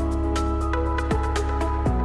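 Background music with a steady beat over held notes and a low bass line.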